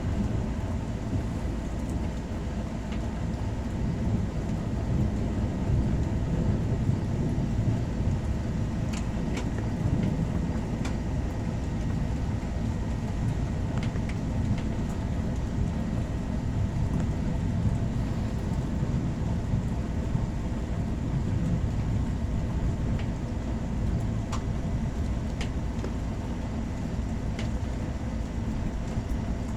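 Thunderstorm ambience: a steady low rumble with faint ticks scattered through it.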